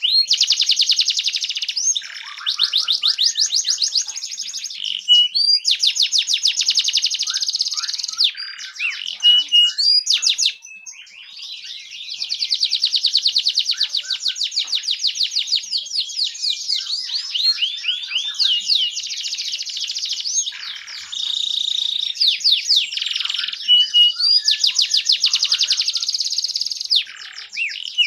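Domestic canary singing: long phrases of fast rolling trills, each a rapid run of the same high note, broken by short pauses, with a softer stretch about ten seconds in.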